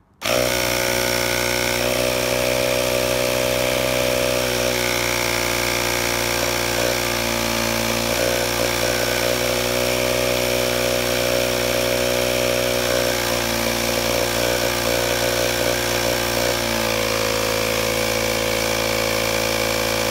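Air compressor motor starting abruptly and running steadily, building air pressure on an oil pressure switch under bench test.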